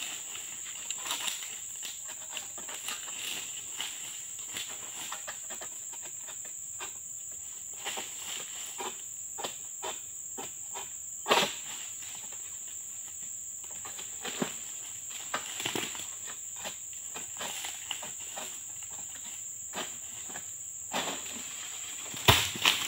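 A steady high insect drone runs throughout, under scattered clicks and scrapes from a manual egrek, a sickle on a long pole, cutting at the crown of a tall oil palm. There is a sharp crack about eleven seconds in, and near the end a heavy thud, the loudest sound, as a cut oil palm fruit bunch hits the ground.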